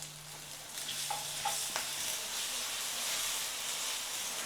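Onions and freshly added ginger-garlic paste sizzling in hot oil in a kadai while being stirred, with a few light spatula taps against the pan. The sizzle grows louder about a second in.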